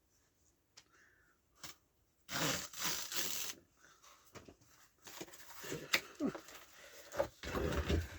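A mail parcel being torn open by hand: a burst of tearing about two seconds in, then rustling and handling of the packaging.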